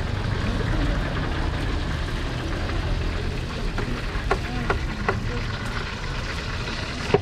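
Street-market ambience: a steady low rumble with a haze of background noise, and a few sharp clicks about four to five seconds in and another near the end.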